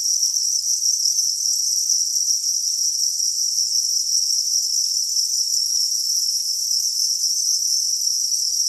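Dense, steady high-pitched chorus of many farmed crickets chirping together in their rearing pen.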